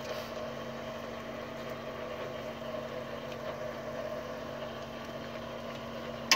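Fishing boat's engine idling with a steady, even hum. A single sharp click comes right at the end.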